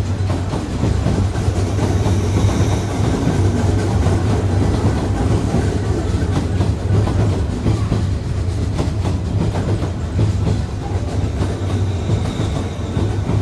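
A JR West 201 series electric train rolls into the platform close by, slowing to stop, with a steady loud rumble of wheels and running gear.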